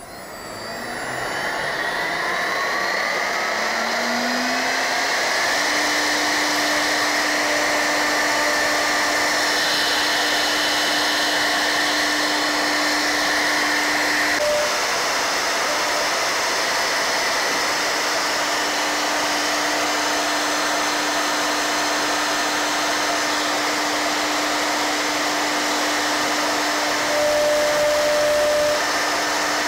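Router spindle of an XY routing machine, fitted with a 12 mm end mill, spinning up with a rising whine over the first few seconds, then running steadily while it cuts a 7 mm-deep slot in a panel. The tone changes abruptly about halfway through.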